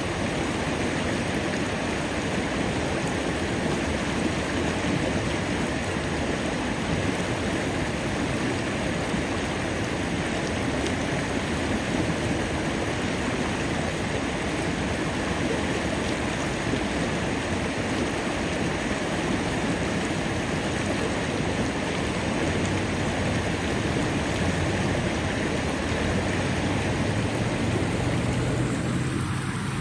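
Flowing stream water running steadily, an even rushing noise.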